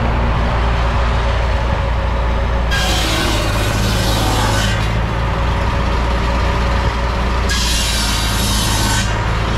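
Steam engine running a belt-driven sawmill: a steady low mechanical drone, with two stretches of hissing of about two seconds each, the first a little under three seconds in and the second near the end.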